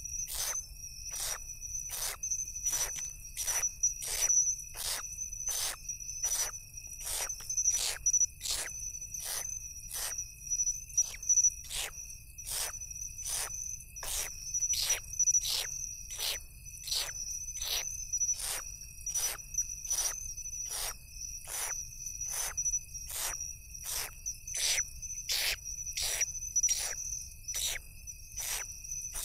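Steady high-pitched insect trilling, with short harsh rasps repeated evenly about one and a half times a second, some louder than others.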